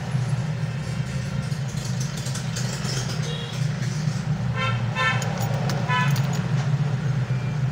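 Steady low rumble of road traffic, with a vehicle horn sounding several short beeps about four and a half to six seconds in.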